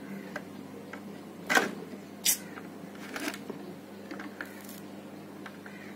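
A few sharp clicks and taps as a soldering iron and small tools work on a laptop motherboard, the two loudest about a second and a half and two and a quarter seconds in, over a steady low hum.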